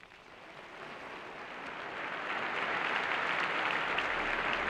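Large audience applauding, swelling over the first two seconds into steady, sustained clapping.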